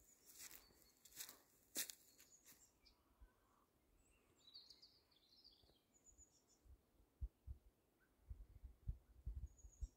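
Footsteps crunching on dry ground during the first few seconds, then a few faint, scattered high bird chirps. Several low thuds near the end.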